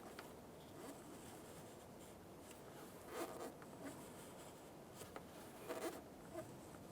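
Faint scratching of a marker drawing reference lines around a car door hinge, in a few short strokes, the clearest about halfway through and another near the end.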